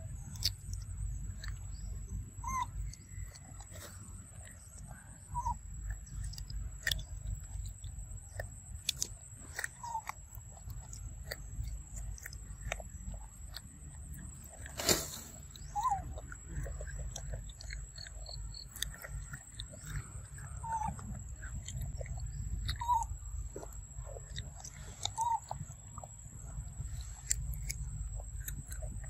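A macaque chewing and biting food close up, with many small wet clicks and crunches and one louder click about halfway. Short high chirps come every few seconds over a steady high whine and a low rumble.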